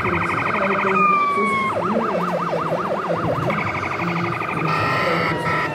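Electronic siren from a radio-controlled model fire truck's sound module, played through its small speaker: a rapid warble, a single falling tone, a yelp sweeping up and down about five times a second, the rapid warble again, then a steady horn-like blare near the end.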